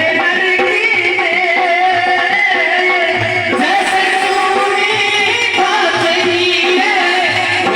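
A devotional bhajan being sung, the voice wavering in a melodic line over instrumental accompaniment. A hand drum keeps the beat.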